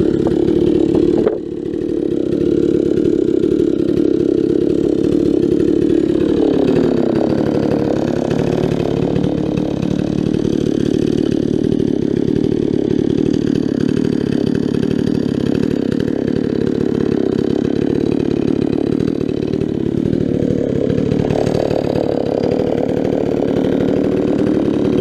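Stihl 046 Magnum two-stroke chainsaw running at high revs on a milling chain, ripping a log lengthwise on an Alaskan chainsaw mill. The engine pitch sags under load and recovers, with a brief break about a second in.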